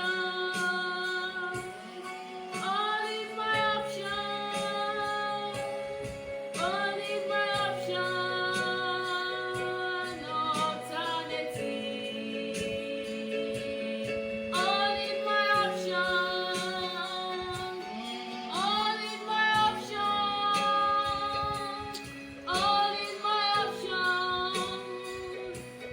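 A woman singing a gospel song in long, held phrases over sustained accompanying chords.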